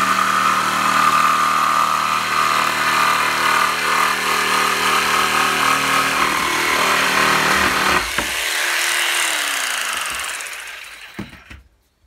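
Electric jigsaw cutting through an old weathered board, its motor running steadily with the blade chattering in the wood. About eight seconds in the motor is switched off and winds down, its pitch falling, and it stops near the end.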